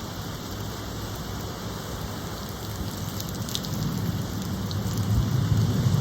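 Steady rain falling, an even hiss, with a low rumble swelling over the last couple of seconds as the sound grows louder.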